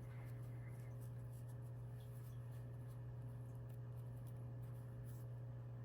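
Faint rubbing and light handling sounds of a crocheted yarn piece being worked by hand, with a few soft ticks, over a steady low hum.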